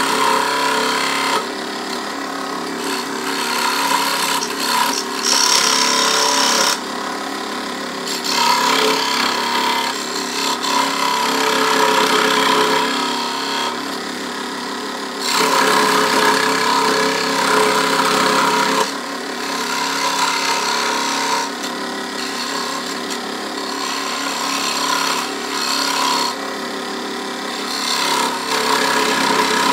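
Bench scroll saw running, its reciprocating blade cutting the contour of a melamine-faced particleboard panel. The steady machine hum is overlaid by a louder rasping cut that swells and eases several times as the board is fed and turned.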